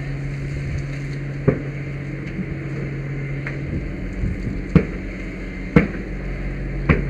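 A steady low hum, like an engine running, under four sharp knocks: one about a second and a half in, then three a second or so apart near the end. The knocks come as the helmet-mounted camera is jostled.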